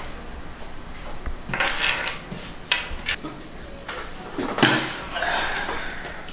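Handling noises at a desk: short rustles and knocks of a deck of playing cards being gathered in the hands, and an office chair shifting as a man gets up.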